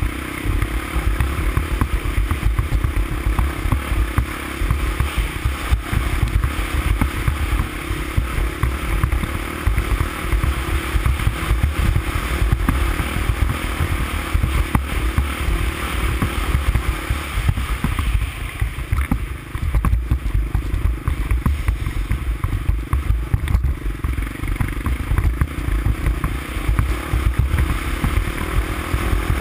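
350X ATV engine running steadily under way, with heavy low rumble from wind on the microphone.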